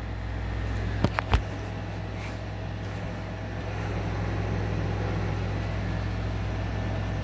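A steady low machine hum, with three short sharp knocks in quick succession about a second in.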